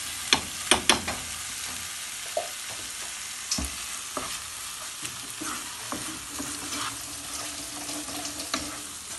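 Onion and spice masala, with yogurt just stirred in, sizzling in a nonstick frying pan while a wooden spatula stirs and scrapes it. The spatula knocks against the pan in a few sharp clicks, loudest about half a second to a second in.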